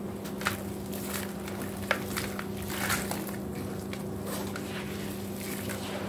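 Gritty white cement chunks being squeezed and crumbled by gloved hands in a basin of milky water: wet squishing and crunching, with a few sharp crunches, over a steady low hum.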